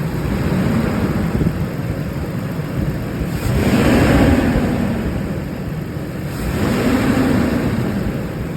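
2016 Nissan Frontier's engine revved twice, the big cooling fan roaring louder with each rev and easing back between them: the fan never disengages because the fan clutch has failed.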